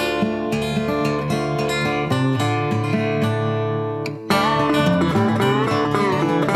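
Background music led by strummed acoustic guitar. It drops out briefly about four seconds in, then carries on.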